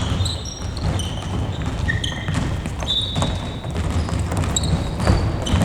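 Futsal play on an indoor gym court: sneakers squeaking on the floor in short high squeals, the longest about three seconds in, mixed with ball kicks, bounces and footfalls thudding in a large, echoing hall.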